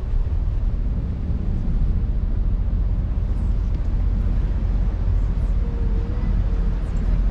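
Tour boat's engine running steadily at cruising speed, a continuous low rumble.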